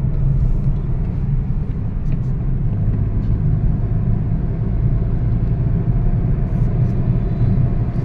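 Steady low rumble of a car driving along a paved road, heard from inside the cabin: engine and tyre noise.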